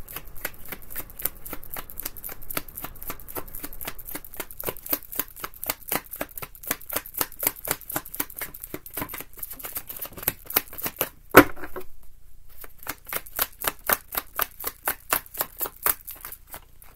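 A deck of tarot cards being shuffled hand to hand: a steady run of quick card slaps, several a second, with one louder knock about eleven seconds in and a short pause after it.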